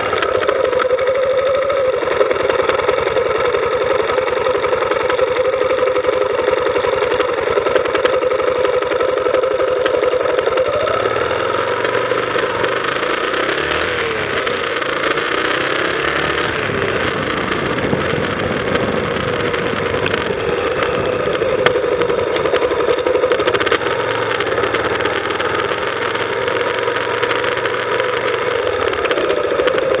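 Motorcycle engine running close to the microphone, steady at first, then rising and falling in pitch through the middle as the bike rides off and changes speed.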